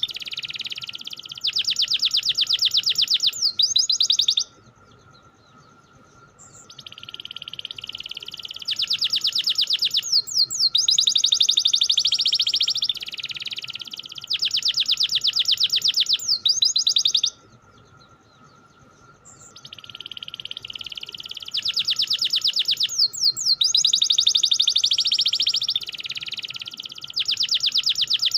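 Canary singing long, rapid rolling trills in phrases of several seconds, with two pauses of about two seconds each. A faint steady high tone runs underneath.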